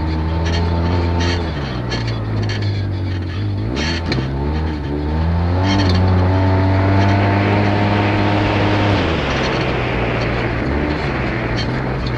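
Engine of an off-road vehicle heard onboard while it laps a dirt track. The note steps up and down several times with throttle and gear changes, then drops as it slows about nine seconds in, with a rushing noise in the middle.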